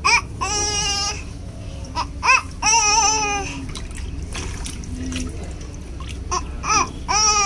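A young child's high-pitched squealing cries, a string of short bursts in the first few seconds and again near the end, with a quieter gap in between. Water splashes lightly as small hands grab at fish in a shallow metal tub.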